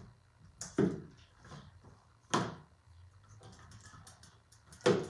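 Paint bottles being rummaged through in a storage box: three sharp knocks about a second and a half apart, with light clicks between.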